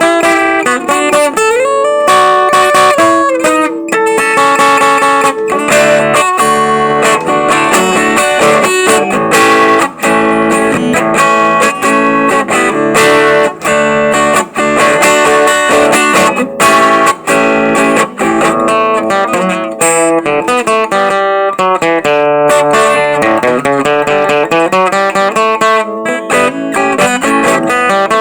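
Acoustic guitar (violão) playing a fast picked melody over chords, with some notes sliding in pitch.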